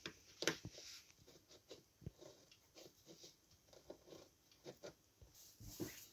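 Faint handling sounds: scattered soft clicks and brief rustles as gloved hands move a small copper plate against steel calipers and a steel ruler on paper, with a sharper click about half a second in.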